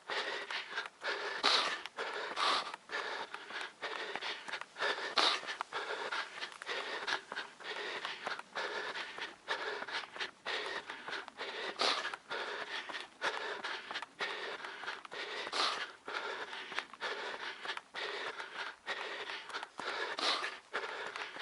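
A trail runner breathing hard and panting in a steady rhythm, with footsteps on the dirt trail.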